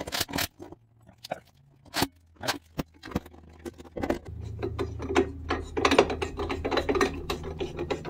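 Clattery handling noise: a run of separate sharp clicks and knocks, then from about four seconds in denser rattling and scraping over a low hum.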